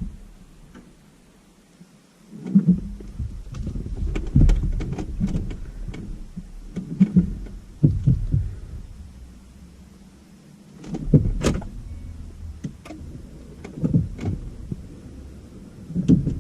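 A car's starter motor cranking the engine in two long tries, about two seconds in and again near eleven seconds, with a pause between, and the engine not catching.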